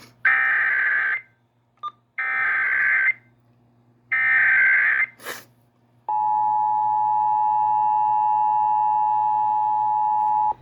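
Emergency Alert System header: three one-second bursts of digital SAME data tones, then about six seconds in the steady two-tone EAS attention signal starts and holds. Together they open a Child Abduction Emergency (Amber Alert) activation.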